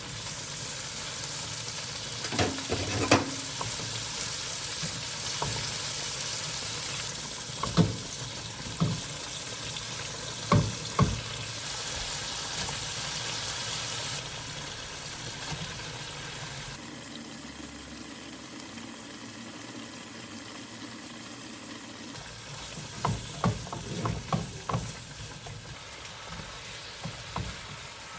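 Food sizzling and frying in a pan while it is stirred, with a steady hiss and a few sharp knocks of a utensil against the pan, in clusters early on and again near the end.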